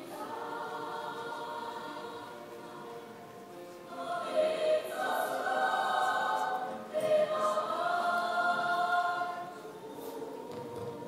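A small choir of young voices singing long held notes, swelling louder about four seconds in and falling softer near the end.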